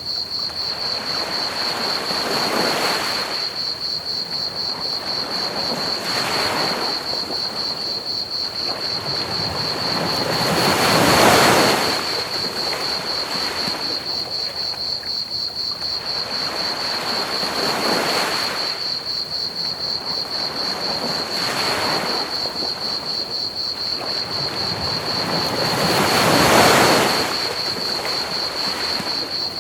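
Ocean waves breaking on a beach, swelling and falling back every few seconds, with the biggest breakers about eleven and twenty-six seconds in. Crickets chirp steadily and high-pitched over a constant hiss of pink noise.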